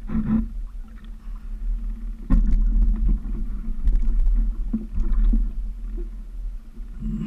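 Several knocks and bumps on a small boat's hull and deck as a person clambers aboard, over a low uneven rumble and a steady low hum.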